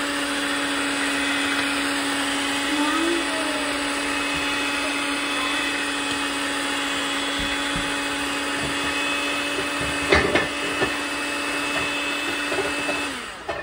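Chefmate electric hand mixer running steadily, its beaters whirring through thin brownie batter in a ceramic bowl, with a steady motor hum. A few sharp knocks come about ten seconds in, and the mixer switches off shortly before the end.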